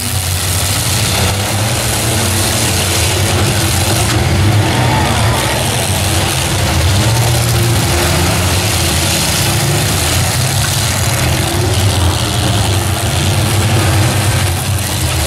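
Engines of many demolition derby pickup trucks, SUVs and vans running and revving together as they push and ram each other, a loud steady mass of engine noise.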